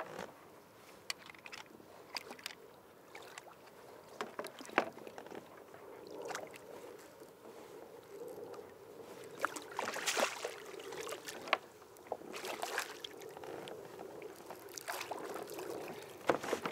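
Hooked European sea bass splashing at the surface beside a kayak, with water washing against the hull and scattered sharp clicks and knocks. Louder splashes come about ten seconds in and again near the end as the fish is lifted out of the water.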